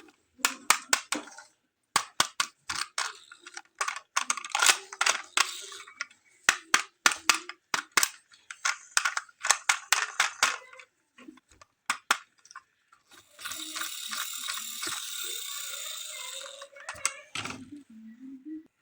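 Plastic toy cars and their packaging being handled: a long run of sharp clicks and rattles, then a few seconds of steady hissing rasp, with a brief wavering whir near the end.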